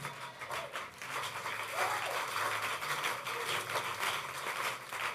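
Congregation's response: a steady wash of crowd noise, like scattered clapping and voices, in the church hall.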